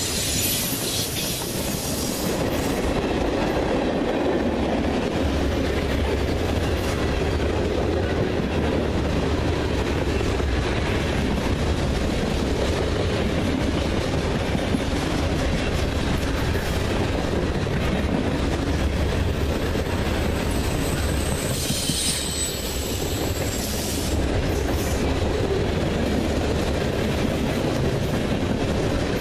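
Freight train boxcars rolling past close by: a steady rumble and rattle of steel wheels on the rails, with a brief high wheel squeal about three-quarters of the way through.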